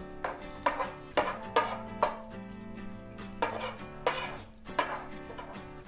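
A kitchen utensil knocking and scraping against a frying pan as freshly fried sambal is lifted out: a run of sharp clinks in the first two seconds, then a few more, over steady background music.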